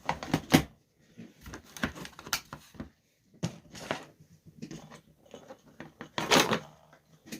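Handling noises from a laptop charger and its cords being worked by hand: a run of irregular clicks, knocks and rustles, with a louder scrape about six seconds in.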